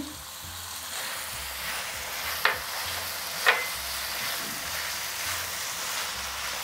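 Thick paneer masala sizzling in a nonstick frying pan over high heat while a silicone spatula stirs it, with two sharp clicks about a second apart near the middle.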